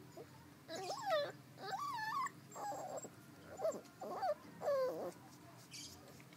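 Puppies whining and yelping during rough play: about six short cries in quick succession, each with its pitch bending up and down.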